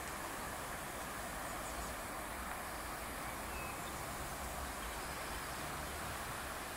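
Steady outdoor background noise: an even hiss with a low rumble underneath, and a faint short chirp about three and a half seconds in.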